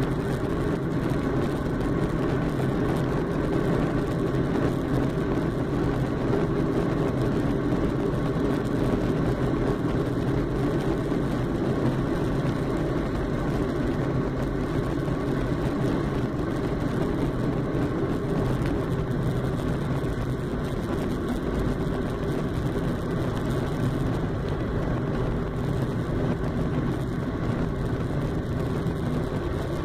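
Steady cabin noise inside a Boeing 737-800 taxiing on the ground: an even rumble and hum from its CFM56-7B jet engines at low taxi thrust.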